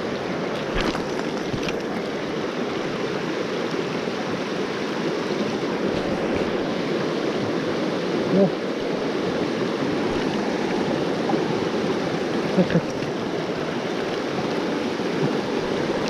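Shallow mountain stream rushing over rocks and riffles: a steady, even rush of water, with a few faint clicks in the first couple of seconds and two brief knocks later on.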